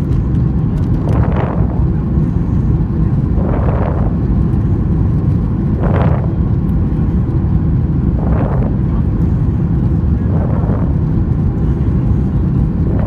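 Steady low roar of a Boeing 737-800's CFM56 engines and airflow heard from inside the cabin on final approach, with a short swell in the higher sound about every two and a half seconds.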